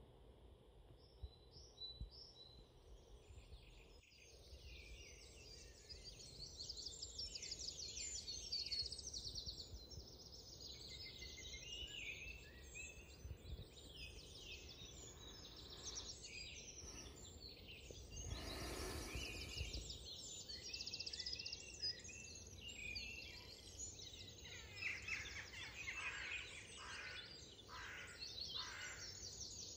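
Several small birds singing and chirping over one another, a dense chorus of quick warbles and twitters that starts a few seconds in. A brief rush of noise passes about two-thirds of the way through.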